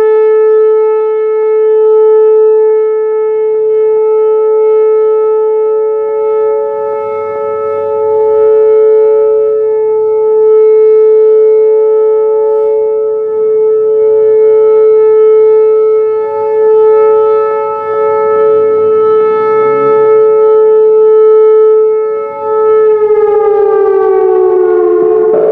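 Whelen Vortex R4 electronic outdoor warning siren holding a steady alert tone, its loudness swelling and fading every few seconds. Near the end it begins to wind down, the tone falling in pitch.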